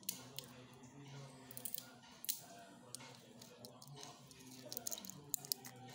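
Faint scattered clicks and rustles of a gamecock being held and its legs handled, over a low background hum.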